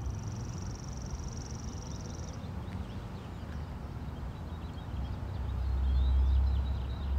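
Outdoor ambience: small birds chirping, with a high buzzing trill held for about two seconds at the start, over wind rumbling on the microphone that grows louder near the end.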